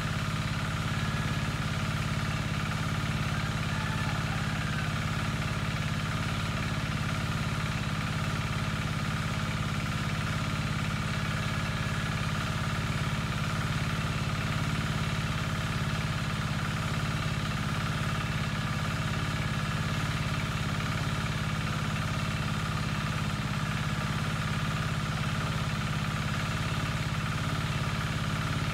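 A small engine running steadily at one even speed, with a constant hum and no change in pitch or level.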